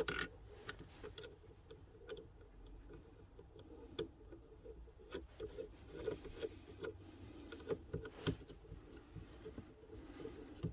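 Scattered small clicks and taps of hands plugging electrical connectors and cables back into place, irregular and a few seconds apart at most, over a faint low hum.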